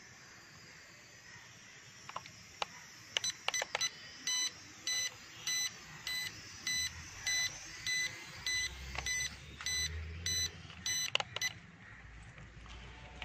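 Toy quadcopter's low-battery warning: a run of short, evenly spaced electronic beeps, about two a second, as its battery runs flat. A faint high whine of its small motors comes first, and a few sharp clicks fall before and after the beeping.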